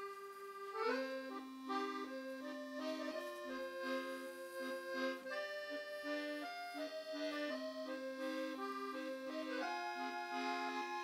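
Background music: a lively accordion tune, with sustained chords under a melody that moves note by note.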